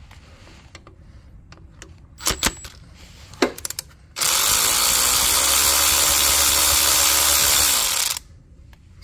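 A few sharp metal clicks as the socket goes onto the bolt, then a cordless power ratchet with a 13mm socket whirs steadily for about four seconds, spinning out a 13mm mounting bolt, its pitch dropping as it stops.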